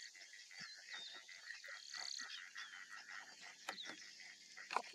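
Savanna morning ambience: birds chirping and whistling in short high notes over a steady high-pitched background chorus, with a few sharp clicks, the loudest near the end.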